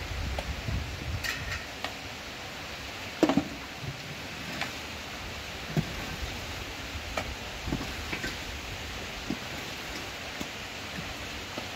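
Long-handled shovel digging into stony earth: short irregular strikes and scrapes of the blade about once a second, the loudest about three seconds in, over a steady outdoor hiss.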